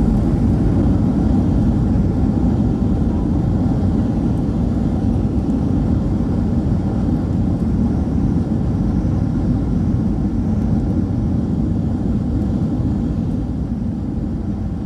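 Loud, steady roar of engine and airflow noise inside the cabin of a Boeing 737-900ER during landing, easing off gradually near the end.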